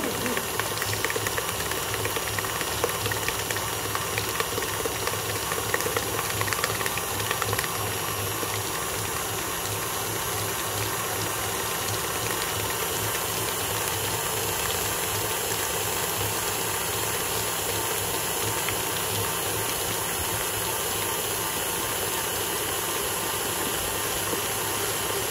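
KitchenAid Artisan stand mixer running steadily, its beater churning buttercream in the steel bowl. Light clicks come through over the first several seconds, then an even whir.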